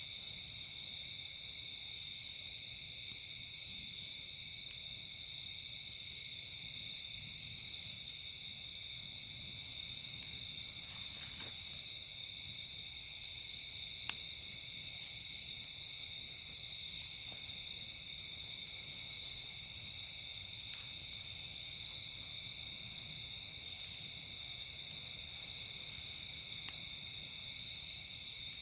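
Steady chorus of crickets and other night insects, with a higher buzzing that comes and goes every few seconds. A few sharp pops from the crackling campfire cut through, the loudest about halfway through.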